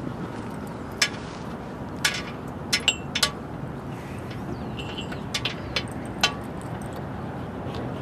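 A handful of sharp metallic clinks from the dogs' leash chain and collar hardware as they move around, some leaving a short ring. A steady low background noise runs under them.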